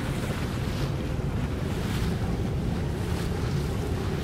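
Wind rumbling on the microphone over open water, with lapping water and a low steady hum of boat motors.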